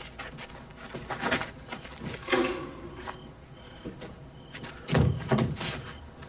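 Irregular footsteps and light knocks, with a creak about two seconds in and heavier thuds about five seconds in. A faint, intermittent high chirping sits behind them.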